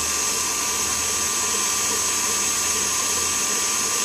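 KitchenAid Heavy Duty stand mixer running steadily at medium speed, setting 4 to 5, its whisk beating still-thin whipping cream in a stainless steel bowl. The motor's steady whine has an even hum, with no change in speed.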